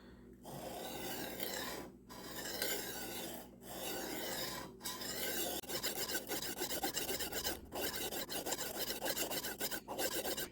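Steel blade of an Ontario RAT-7 knife scraped in long strokes across a coarse 300-grit Ultra Sharp II diamond sharpening stone, a rasping grind with brief pauses between strokes. The edge bevel is being reprofiled on the starter stone under light pressure.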